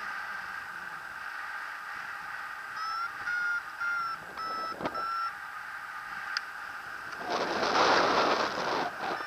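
Paragliding variometer beeping in a run of short high tones, the signal that the glider is climbing in lift. Near the end, wind rushes loudly over the microphone for about two seconds.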